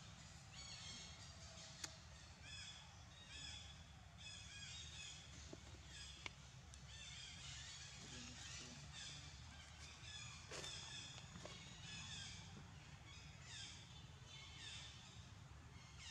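Faint ambient chorus of repeated high calls, about one a second, each falling in pitch, over a steady low hum, with a few faint clicks.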